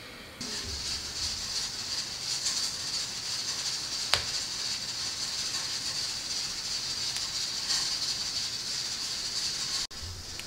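Steady high hiss, with one sharp click about four seconds in.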